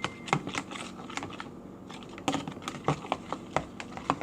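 Spoon stirring shampoo in a bowl, clicking and tapping against the bowl's sides in an irregular run of clicks.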